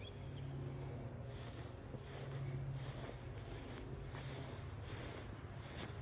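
Crickets chirping in a steady pulsing trill over a low, steady hum.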